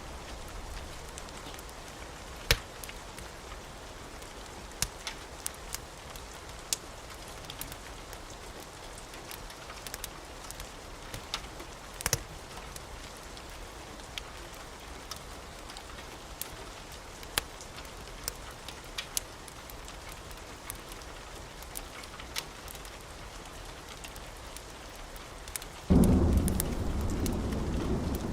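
Steady rain with scattered sharp clicks throughout, and a low rumble of thunder that breaks in suddenly near the end.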